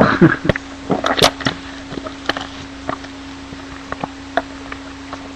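A trading-card pack being torn open and its wrapper crinkled while the cards are handled: irregular short crackles and clicks, strongest in the first second and a half.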